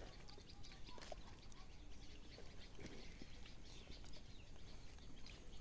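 Faint outdoor background noise, with a few brief faint animal-like calls and small clicks.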